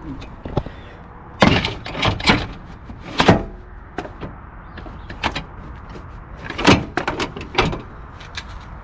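The tailgate and camper shell rear hatch of a pickup truck being handled and shut: a run of sharp clunks and rattles, in groups about a second and a half in, at about three seconds, and again near seven seconds.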